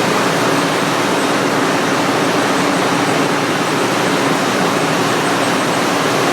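Steady, loud machinery noise of a ship's engine room, an even din with a faint low hum running through it.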